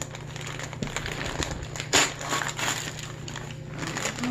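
Gift wrapping paper and packaging rustling and crinkling as a present is unwrapped by hand, with one louder crackle about two seconds in.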